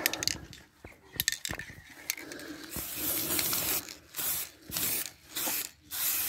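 A few clicks and rattles, then an aerosol spray-paint can hissing: one longer spray of about a second, followed by four short bursts at an even pace.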